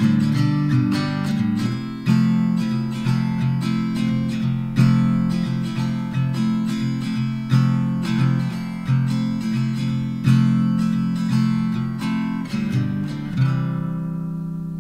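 Background music: a strummed acoustic guitar in a steady rhythm, a chord a little more often than once a second, with the last chord left ringing and fading near the end.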